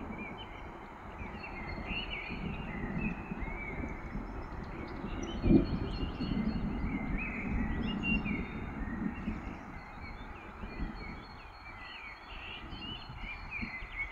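Distant thunder rumbling low, swelling and fading, with one brief louder thump about five and a half seconds in, and the rumble dying down near the end. Small songbirds chirp and sing throughout.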